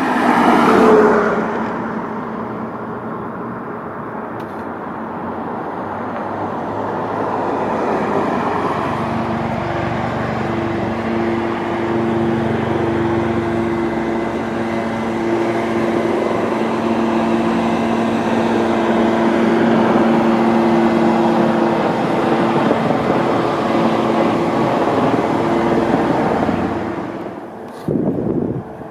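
Road traffic on a city street: vehicles passing, with a steady engine drone through most of the middle that drops away near the end.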